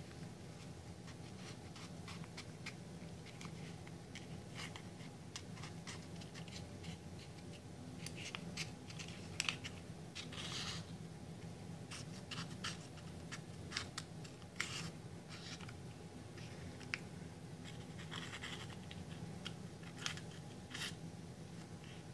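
Small scissors snipping and scraping through a leathery ball python eggshell: a run of soft, irregular clicks and scratches, a few sharper snips among them, over a steady low hum.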